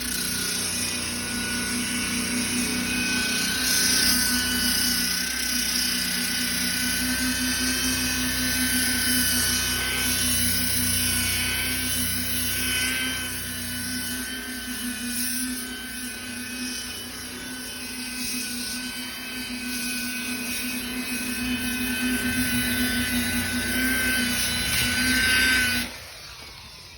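Electric buffer/polisher running at high speed with 40-grit sandpaper on its Velcro pad, sanding a metal surface: a steady motor whine with a rough abrasive hiss that rises and falls as the pad is worked. The motor cuts off about a second before the end.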